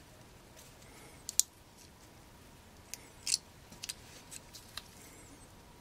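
Small sharp clicks and crackles of a chainsaw carburetor's parts handled in gloved hands as its cover, gasket and diaphragm are taken off. The loudest snap comes about a second and a half in, followed by a cluster of lighter ticks.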